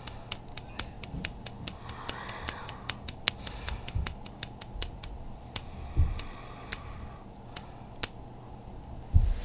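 The small plastic switch on a snap-together electrical kit being clicked on and off over and over, about four clicks a second, slowing to about one a second after about five seconds. A few soft handling thumps come in between.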